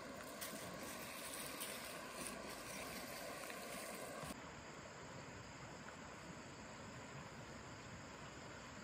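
Steady rushing of a flowing stream. The sound drops slightly and changes character about four seconds in.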